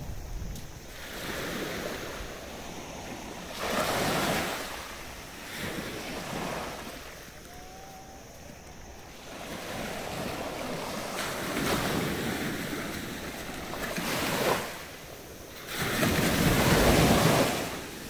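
Small waves breaking and washing up a sandy beach in repeated surges of rushing water, the loudest one near the end.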